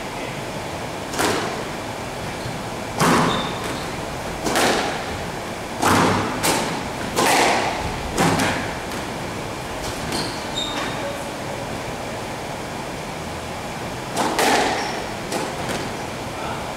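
Squash ball cracking off rackets and the court walls during a rally: about ten sharp hits with a short echo, coming quickly for the first eight seconds or so, then a pause and a few more near the end, over a steady hiss.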